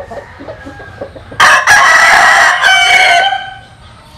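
An American Asil gamecock rooster crowing once, one loud crow lasting about two seconds that starts about a second and a half in, after a few soft clucks.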